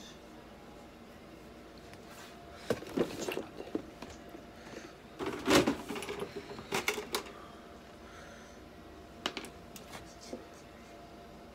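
Scattered clicks, light knocks and rustles of hands working gauze ties and a small instrument at a stainless steel exam table. They come in three short clusters, the loudest knock about five and a half seconds in, over a faint steady hum.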